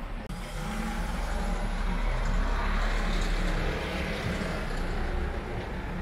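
A motor vehicle driving past on the street, its engine hum and tyre noise swelling to a peak a few seconds in and then fading.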